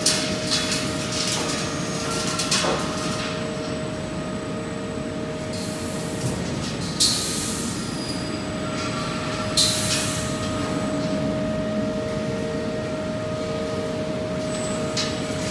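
Timber conveyor line running: a steady mechanical hum with two held tones, light clatter in the first few seconds, and two short loud hisses about seven and ten seconds in.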